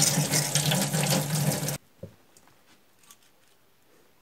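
Kitchen tap running hard onto hands rinsing chicken pieces in a stainless steel sink, a steady rush of water. It stops abruptly a little under two seconds in, leaving near quiet with one faint knock.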